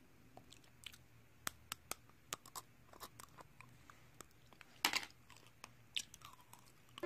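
Hardened sugar coating of tanghulu crunching as it is bitten and chewed: irregular sharp cracks, the loudest about five seconds in.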